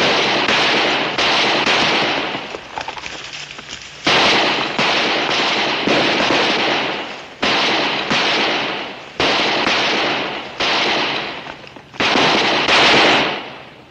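Gunfire in a shootout: a dozen or so gunshots at irregular intervals, some in quick pairs, each ringing out with a long echo that dies away over about a second. The last shots, near the end, are the loudest.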